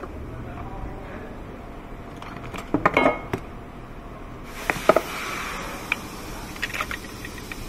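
Metal hand tools clinking and clattering in a toolbox drawer, with a cluster of clanks about three seconds in and a few lighter clicks after. A steady hiss starts about halfway through.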